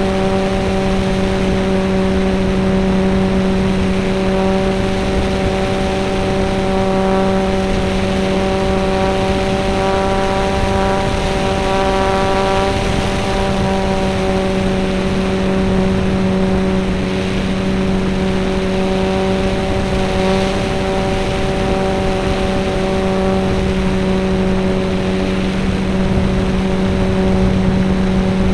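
RC model plane's motor and propeller running at a steady pitch, heard on board over rushing air noise.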